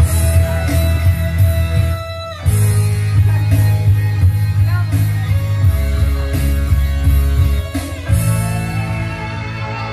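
Instrumental karaoke backing music, guitar over a heavy bass line, with a short break about two seconds in.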